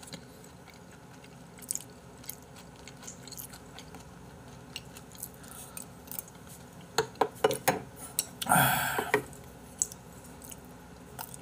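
A man eating braised chicken stew close to the microphone: quiet chewing with scattered sharp mouth and utensil clicks, a run of clicks about seven seconds in, and one louder brief burst of noise about eight and a half seconds in.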